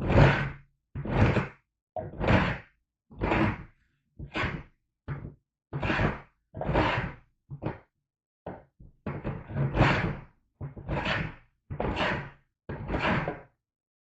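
Wooden hand plane taking repeated strokes along a board, about one stroke a second, each a short scraping slide.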